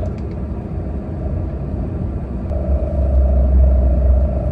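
Low rumble of a car, heard from inside, with a steady hum joining and the rumble growing stronger about two and a half seconds in.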